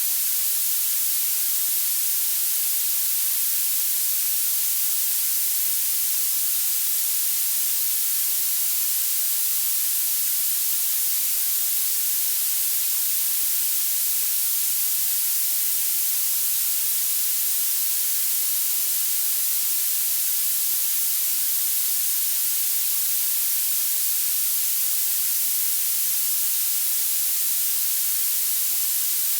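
Violet noise: a steady, generated hiss that grows louder toward the highest pitches, bright and thin with almost nothing in the bass.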